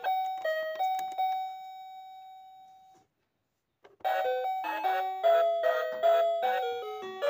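Background music: a chime-like melody of short struck notes. One note rings on and fades out, a brief gap follows at about three seconds, then the tune comes back with quicker notes.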